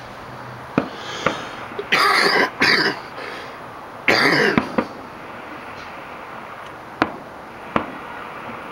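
A few sharp bangs from distant fireworks bursting, heard from high up in the city. Between them, a person close to the microphone coughs, around two seconds in and again around four seconds in; the coughs are louder than the bangs.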